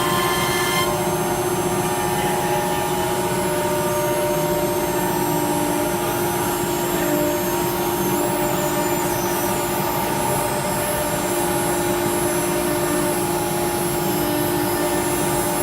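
CNC router machine running: a steady mechanical hum and whine made of several held tones over a noisy rush. A few higher tones drop out about a second in.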